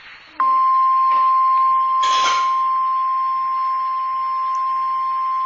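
NOAA Weather Radio 1050 Hz warning alarm tone from a weather radio receiver. It starts abruptly about half a second in and holds as one steady tone, signalling that a warning broadcast follows, here a tornado warning. A brief noise comes about two seconds in.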